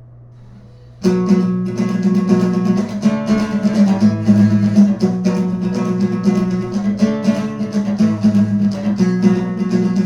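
Acoustic guitar music, plucked and strummed, starting about a second in after a faint low hum.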